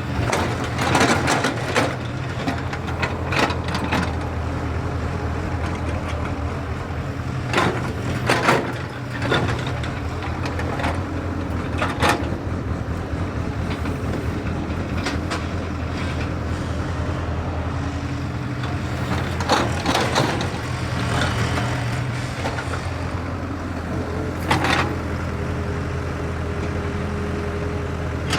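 Excavator's diesel engine running steadily at a constant speed, with a handful of short, loud noises breaking in over it at irregular intervals.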